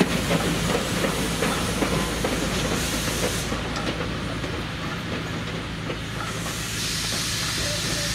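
Steam locomotive moving slowly along the track, with its wheels clicking over rail joints. Steam hisses from it, fading midway and coming back strongly near the end.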